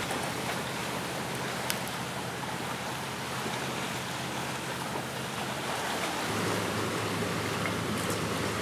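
Sea surf washing steadily on the shore, with a couple of faint crackles from a wood fire.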